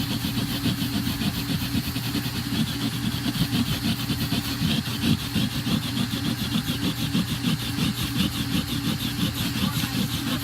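Vacuum cleaner running steadily with a constant hum, its nozzle worked over car carpet to pull up carpet freshener powder, the sound flickering quickly as it moves.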